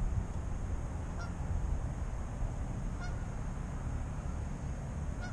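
Wind buffeting the microphone with a steady low rumble. Geese honk faintly three times, about two seconds apart.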